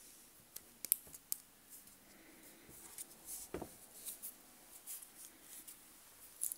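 Stainless steel butterfly deployant clasp of a watch's leather strap being handled and pressed shut on the wrist: a string of small sharp metallic clicks, the sharpest about a second in and another cluster just before the end, with a soft knock about halfway through.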